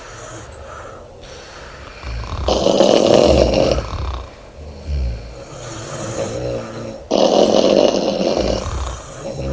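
Woman snoring loudly in her sleep: two long snores, each about a second and a half, about four and a half seconds apart, with softer breathing sounds between.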